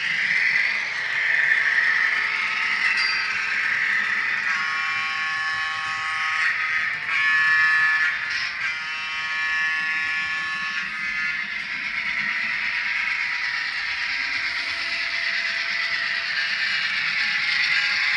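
The onboard sound decoder of a Broadway Limited Imports Paragon N scale SW7 diesel switcher playing its diesel engine running through the model's small speaker, rising and falling slowly. Between about four and eleven seconds in, its horn sounds three blasts of a steady chord.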